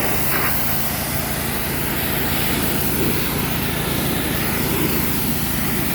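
Portable sawmill's engine running at a steady speed, with a steady hiss over it.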